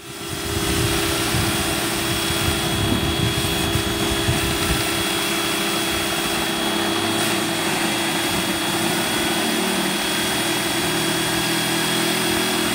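Electric pressure washer running: a steady motor and pump hum under the hiss of the high-pressure jet of water hitting a plastic toy wagon.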